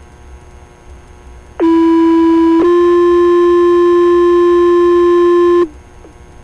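Two-tone sequential fire paging tones received on a scanner radio: a steady tone for about a second, then a slightly higher tone held about three seconds that cuts off sharply. The tone pair is the alert that sets off the fire station's pagers. Low radio hiss comes before and after.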